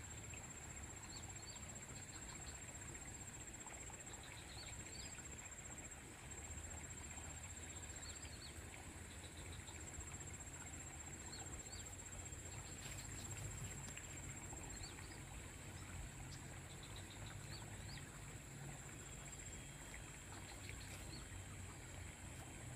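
Quiet outdoor ambience: a small bird gives little groups of short, high chirps every couple of seconds over a steady high-pitched whine, likely insects, and a low wind rumble on the microphone.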